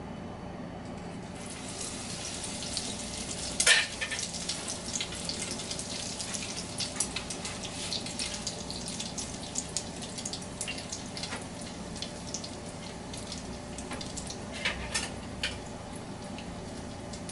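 Hot oil sizzling and crackling as egg-battered stuffed potato balls (papas rellenas) deep-fry, the sizzle starting about a second in. A sharp clink of a utensil is the loudest sound, near four seconds in, with a few smaller clinks near the end.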